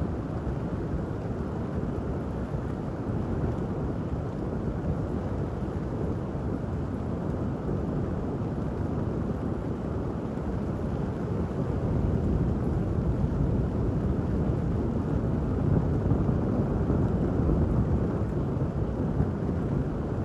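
Rainy city ambience heard as a steady low rumble with little hiss, swelling louder about twelve seconds in.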